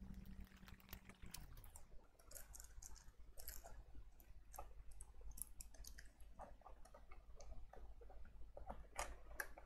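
Faint scattered clicks and light crackles of hands handling a small circuit board and pressing a piece of aluminium over its holes, the sharpest click near the end. A low hum fades away in the first second and a half.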